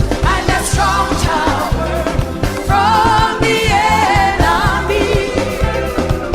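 Recorded song: singing voices over a steady, heavy bass beat.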